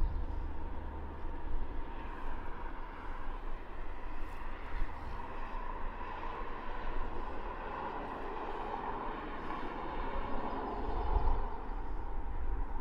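Steady mechanical hum of a large engine or vehicle with a low rumble beneath. It grows louder through the middle and eases off near the end.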